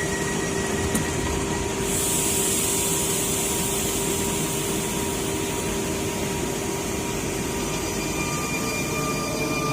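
RER electric commuter train running past on the rails: a steady loud rolling noise with a held whine, and a high hiss that joins about two seconds in.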